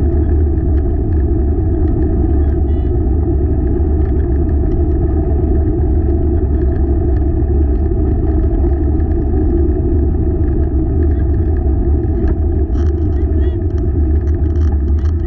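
Steady low rumble of a four-dog open rig rolling along the trail.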